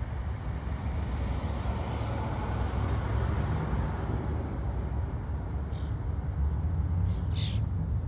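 Steady low rumble of road traffic, swelling around the middle as a vehicle passes. Near the end come a couple of short, high-pitched sounds.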